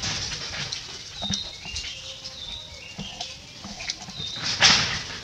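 Short high whistled notes from birds, stepping between a few pitches, over outdoor background noise. A brief rustling noise comes near the end.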